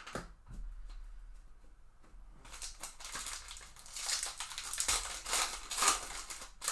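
Crackling and crinkling of a trading-card pack wrapper being torn open and handled, many quick crackles that build up over the second half.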